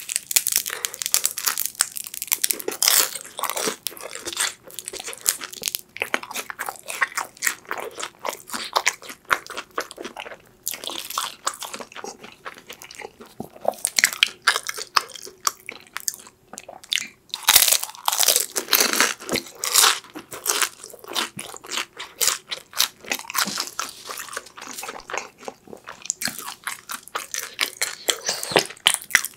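Close-miked crunching and chewing of a fried sweet potato cheese stick, its crisp wrapper crackling in quick clusters with each bite and chew.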